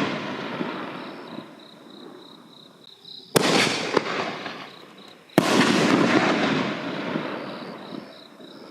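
5-inch canister aerial shells bursting: two loud bangs, about three and five seconds in, with a smaller crack between them, each trailing off into a long fading crackle and rumble. It opens on the fading tail of an earlier burst.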